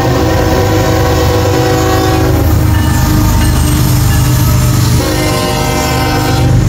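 Locomotive air horn sounding a multi-tone chord: one blast ending a little over two seconds in and another starting about five seconds in, over the steady low rumble of the train.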